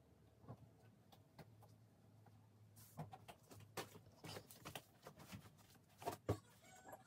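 Faint, scattered light clicks and knocks over a low steady hum: a few at first, coming thicker from about three seconds in, the loudest a pair of knocks about six seconds in.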